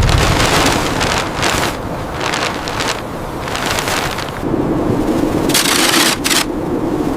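Gusty wind with several short bursts of hissing noise, and a low steady hum coming in about four and a half seconds in.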